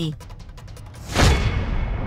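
A deep cinematic boom sound effect hits about a second in, then its rumble fades slowly, like a transition hit in an edit. Before it comes a fast run of faint ticks.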